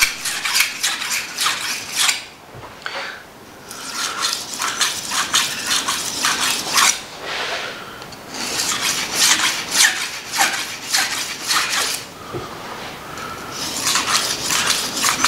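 A steel knife blade scraping back and forth across an oiled sharpening stone under light pressure, in four runs of quick strokes with short pauses between as the blade is turned from side to side.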